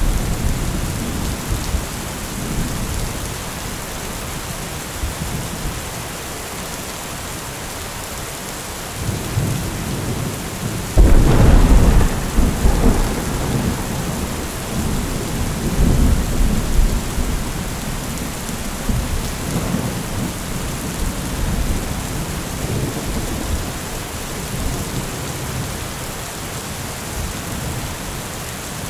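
Heavy rain falling steadily with thunder. There is a low rumble at the start, then a sudden loud thunderclap about eleven seconds in that rumbles on for several seconds.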